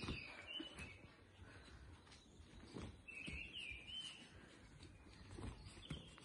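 A small garden bird singing two short warbled phrases, one at the start and one about three seconds in, over faint outdoor background noise with a few soft low thuds.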